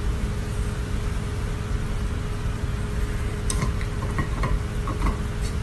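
A loud, steady hiss and low rumble with a faint steady hum under it, and a few faint short high notes in the second half.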